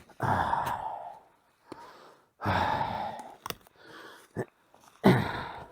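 A man sighing heavily three times, long noisy breaths as he gets down to the ground.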